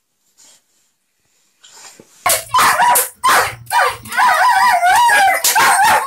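German shepherd barking sharply about five times in quick succession, then yelping and whining in a wavering pitch. This is the dog's protective reaction to a man touching its owner.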